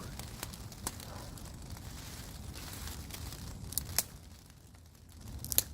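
Small campfire crackling, with scattered sharp pops, the loudest about four seconds in and a quick pair near the end, over a low steady rumble.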